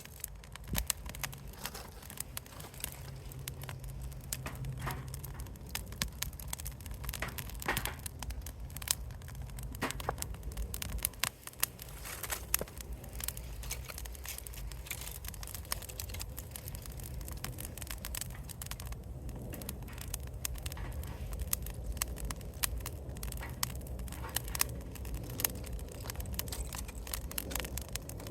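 Wood fire crackling, with frequent irregular sharp pops over a low steady rumble.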